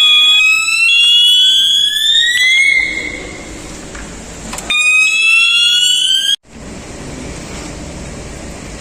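Fire alarm sounder of a newly installed fire detection and alarm system going off during a system test: a rising, wailing sweep with a steady high beep switching on and off over it. It stops about a third of the way in, sounds again for about a second and a half, then cuts off suddenly.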